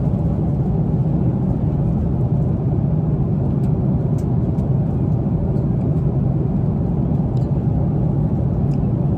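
Steady low drone of an airliner cabin in flight. A few faint light clicks of a metal fork on a plastic meal container sound over it.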